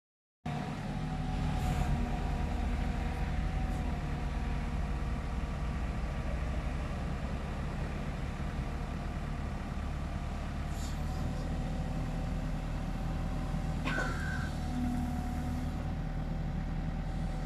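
Caterpillar 906 compact wheel loader's diesel engine running steadily while the boom lifts and tilts the bucket, with a thin steady whine over the engine note. A single sharp click comes about fourteen seconds in.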